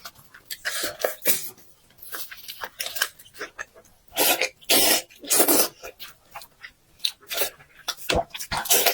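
Close-miked eating of braised pork: wet chewing, smacking and slurping in irregular bursts, the loudest clusters about four to six seconds in.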